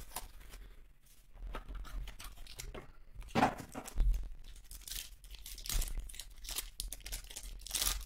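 Foil wrapper of a baseball card pack torn open and crinkled by hand, in several short rips.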